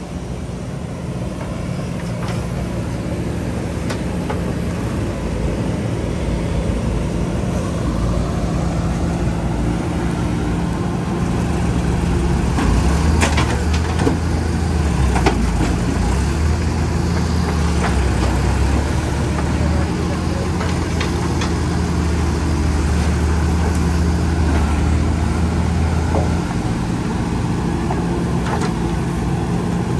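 JCB 3DX backhoe loader's diesel engine running steadily while it digs and loads soil, pulling deeper and louder from about twelve seconds in until near the end. Around the middle come several sharp knocks as soil and stones from the bucket drop into the metal tractor trolley.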